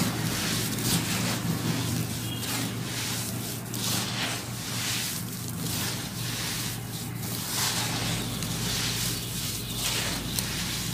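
Hands squeezing and crumbling chunks of dry sand-cement mix: a gritty crunching and trickling that comes in repeated rushes, about one a second.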